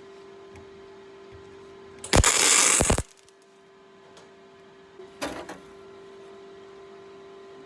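MIG welder arc crackling on steel in two short welds: about a second of welding two seconds in, then a briefer tack about five seconds in, over a steady low hum.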